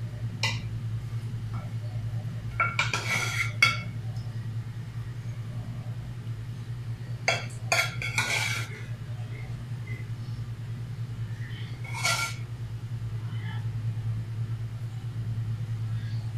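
A metal spoon clinking and scraping against a serving dish as it moves through the cooked mutton, in about four short clusters, over a steady low hum.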